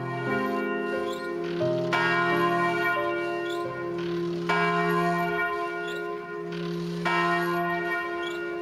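A bell striking the hour, four strokes about two and a half seconds apart, each ringing on and fading under the next, over a low held hum.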